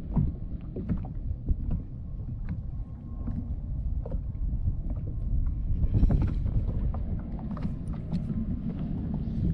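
Wind rumbling on the microphone over water lapping against a small boat, with scattered small clicks and rustles of fishing line and hook being handled.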